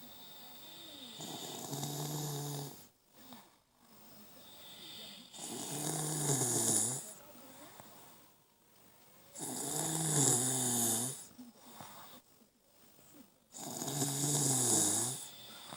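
A person snoring: four snores, one about every four seconds, each a pitched rasp of a second or so, the later ones dropping in pitch at the end, with quiet breathing between.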